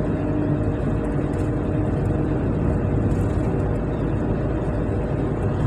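Steady road noise inside a car driving at speed: tyres running on worn, patched asphalt with a low engine hum underneath.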